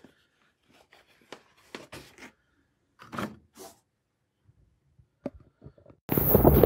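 A run of soft clicks, knocks and rustles, like small objects being handled. About six seconds in, a sudden loud rushing noise starts and keeps going.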